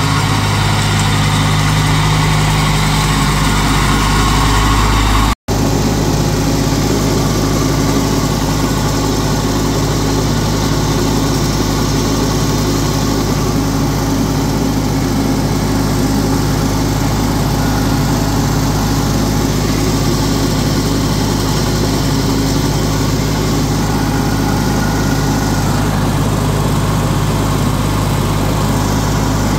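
1987 Huskee garden tractor's engine running steadily, heard close to the hood. The sound breaks off for an instant about five seconds in, then carries on just as steady.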